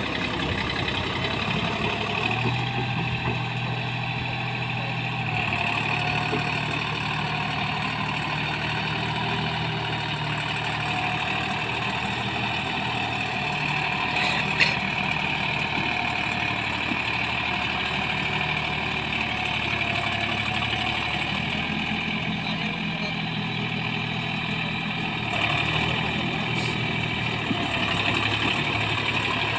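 Deutz-Fahr Agrolux 50 tractor's diesel engine running steadily under load while pulling a rotavator through wet paddy mud, its pitch shifting a few times. A single sharp click about halfway through.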